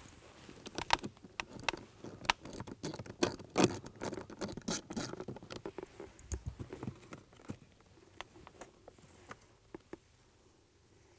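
Rapid, irregular small clicks and taps of a screwdriver and screws being handled while the screws are taken out of a car's cabin air filter access cover under the dash. The clicks are busiest in the first several seconds and thin out near the end.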